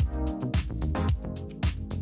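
Electronic background music with a steady drum beat and bass line.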